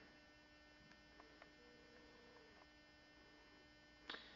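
Near silence with a faint, steady electrical hum. A brief sound comes just before the end.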